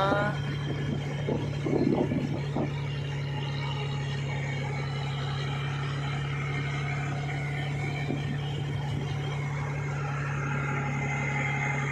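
A fishing boat's engine running steadily under the load of towing a broken-down boat, a constant low hum that holds the same pitch throughout.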